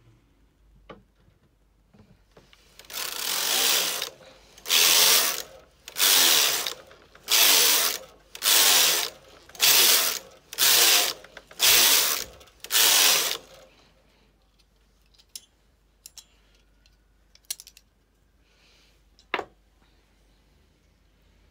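Brother KH260 chunky knitting machine carriage pushed back and forth across the needle bed, knitting plain rows with the carriage set to normal knitting: eight passes of about a second each with short pauses between. A few light clicks follow, with one sharper click near the end.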